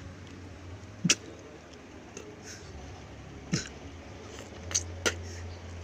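A few short clicking mouth sounds and lip smacks, about a second in and twice near the end, with a brief throaty sound falling in pitch midway. They come from a man with bitter printer ink in his mouth after sucking a clogged ink cartridge clear.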